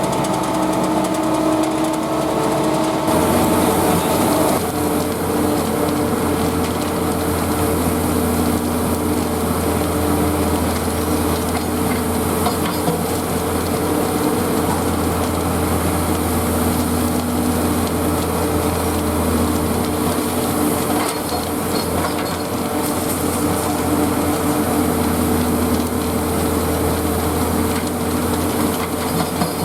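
Engine of concreting machinery running steadily, its tone shifting about three seconds in.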